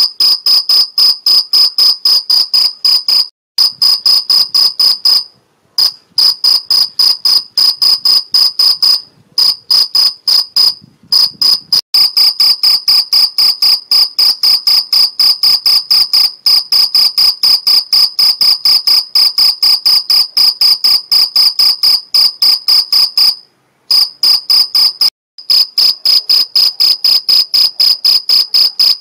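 Male field cricket's calling song: clear, high chirps repeated about four times a second, made by rubbing its forewings together. A few brief pauses interrupt the run.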